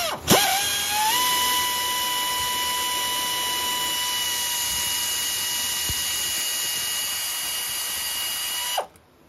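Electric ratchet's motor spinning up and then running at a steady pitch for about eight seconds, driving a triple-square bolt. It spins down and stops near the end.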